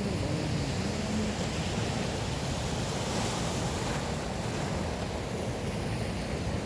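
Sea surf washing on the shore, with wind buffeting the microphone.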